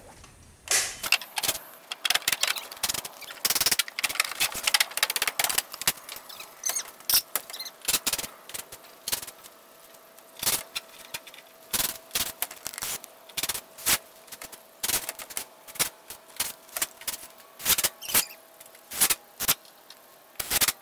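Fastening tools driving fasteners into a wooden screen-room frame: a run of sharp, irregular snaps, at times several a second.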